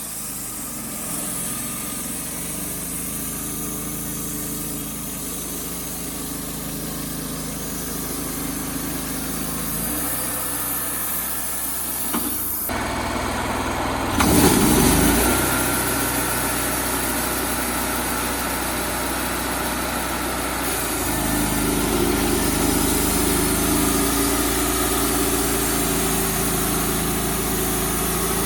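Wood-Mizer LT35HD sawmill's engine running steadily while the band saw cuts a red oak log into boards. Its pitch shifts a few times, with a brief loud surge about halfway through, and it runs louder again about two thirds of the way in.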